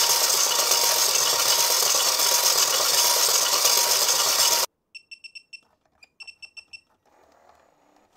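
Doraemon pop-up-head game toy overdriven at 15 volts from a bench power supply, giving a loud, harsh blare with a steady tone running through it that cuts off abruptly about four and a half seconds in. Two quick runs of short high electronic beeps follow.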